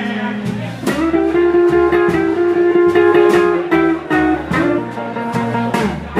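Live blues band playing: electric guitar over upright bass and drums, with a long held note in the middle and a steady drum beat.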